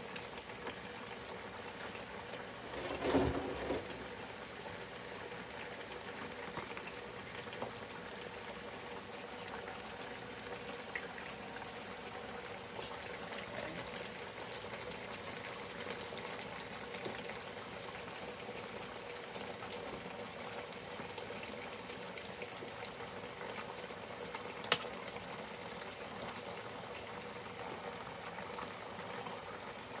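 Seasoned chicken thighs bubbling steadily in their own juices in a packed pot on medium-high heat. The pot is crowded on purpose so the meat stews and boils rather than fries. A brief clatter comes about three seconds in, and a single sharp click near the end.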